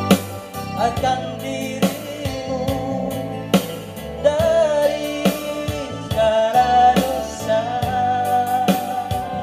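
A man sings a gospel song through a microphone to an electronic keyboard accompaniment with a steady drum beat.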